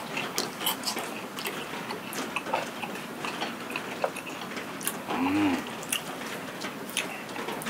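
Steady rain falling, with irregular sharp ticks and the sounds of a man chewing and handling a mung bean and potato pancake with chopsticks. A short hummed 'mm' about five seconds in.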